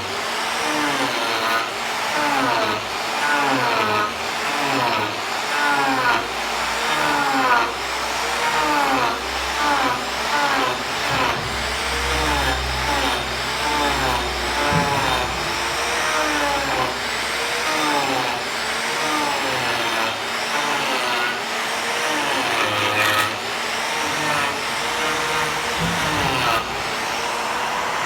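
Power tool working wood, its motor pitch rising and falling again with each stroke, about once a second.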